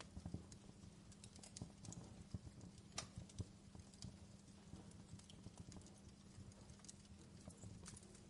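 Faint crackling fire: irregular pops and snaps over a low steady hum.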